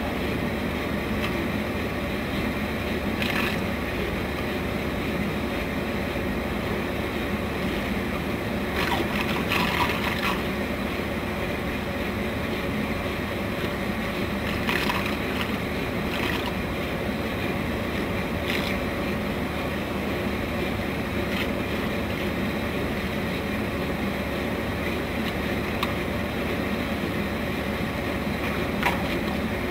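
Floating jet aerator running: a steady rush of churning, splashing water from its jet, with a faint steady motor hum beneath it. A few short louder moments stand out against the even noise.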